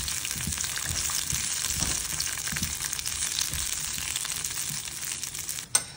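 Red bell pepper pieces sizzling in hot oil in a nonstick frying pan, with a steady crackle as they are stirred with a plastic spatula. A single sharp knock near the end.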